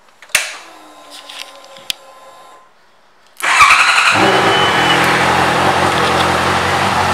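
A Honda CBR650F's inline-four engine with an Akrapovič exhaust, started on the electric starter. Small clicks come first as the ignition is switched on. About three and a half seconds in the engine cranks, catches and settles into a steady idle.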